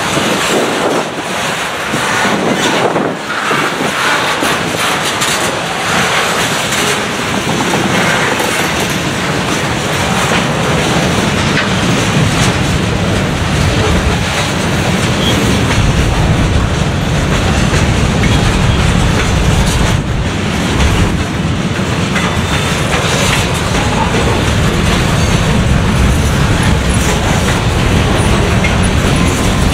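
Freight cars of a slow manifest train rolling past: steel wheels clicking over rail joints amid a steady rolling noise, with a deeper low rumble building in about halfway through.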